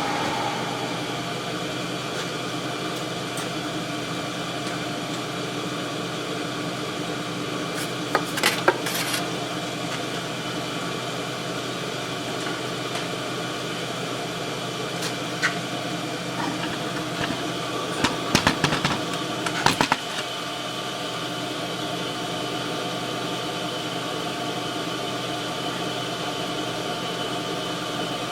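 Cylindrical grinder running steadily, its motors humming with several steady tones, with a few short sharp clicks and knocks about eight seconds in and again in a cluster around eighteen to twenty seconds in.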